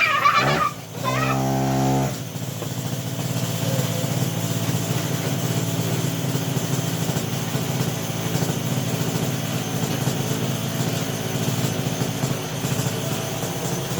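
Two-stroke chainsaw engine driving a homemade go-kart. It revs high for about the first two seconds, with a brief drop under a second in, then settles to a rougher, lower-speed running for the rest of the time.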